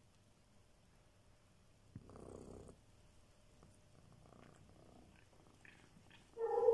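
Domestic cat: a short purring burst about two seconds in, then a loud, drawn-out pitched call begins near the end.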